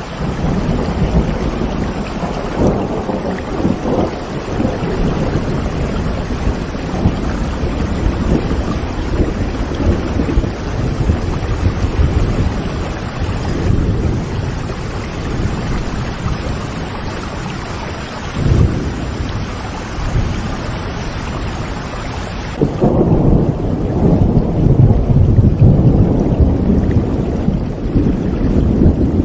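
Steady rain with low rolling rumbles of thunder, the rumble growing louder in the last several seconds.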